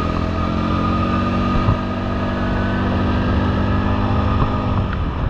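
Four-wheeler (ATV) engine running under steady throttle while riding, holding a fairly even pitch.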